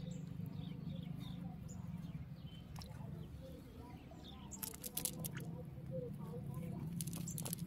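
Hands handling a wet fishing net and small fish on mud, giving light rustles and sharp clicks in clusters about halfway through and near the end. Faint bird chirps sound over a steady low hum.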